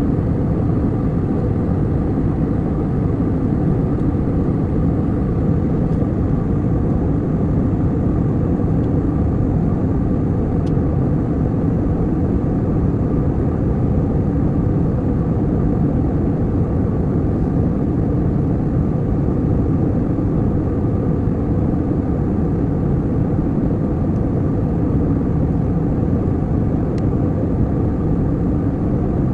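Steady rumble and rush of an airliner cabin in flight: engine and airflow noise, heaviest in the low end and unchanging.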